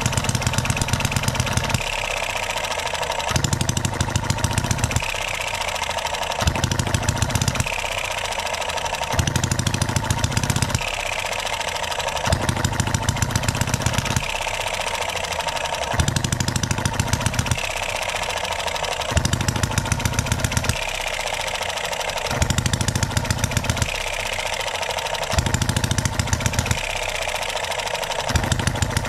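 Enjomor 6cc single-cylinder hit-and-miss model engine running: short runs of rapid firing alternate with stretches of coasting, over and over. The governor is not latching the engine out into true hit-and-miss, and the mixture is still being tuned.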